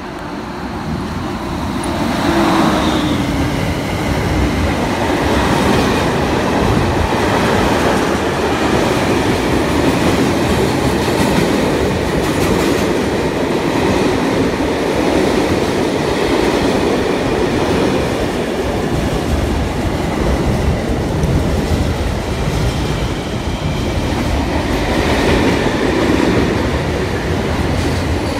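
Freight train passing close by: a BB 26000-class electric locomotive goes by about two seconds in, its hum dropping in pitch, followed by a long run of container flat wagons rolling past with a steady rumble of wheels on rail.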